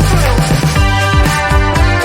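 Upbeat electronic background music with a steady drum beat.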